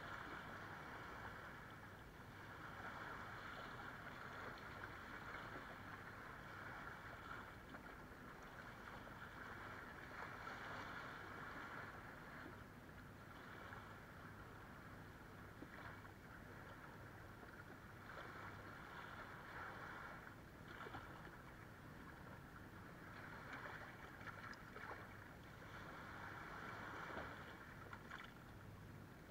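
Small waves lapping and washing over sand and around rocks at the water's edge, faint, swelling and fading every few seconds.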